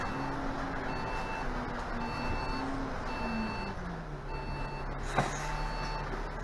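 Bus engine drone inside the driver's cab, falling in pitch as the bus slows and then holding steady, under an electronic warning beep that repeats about once a second. A single sharp click sounds about five seconds in.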